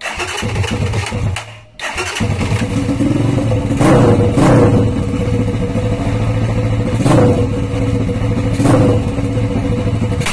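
Sigma 250 motorcycle engine starting, faltering briefly about two seconds in and catching again, then idling with four short throttle blips before it shuts off at the end.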